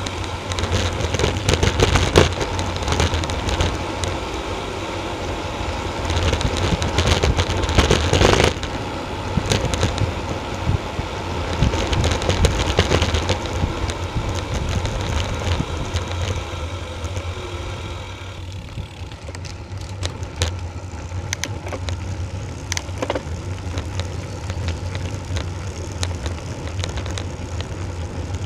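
Wind rushing over an action camera's microphone, with tyre rumble and rattling clicks from a road bike rolling fast down a rough lane. It eases off about two-thirds of the way through as the bike slows onto a climb.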